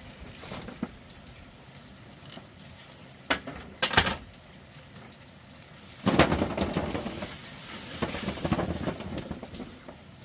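Handling sounds: a few sharp knocks, the loudest about four seconds in, then from about six seconds in several seconds of dense clattering and rustling.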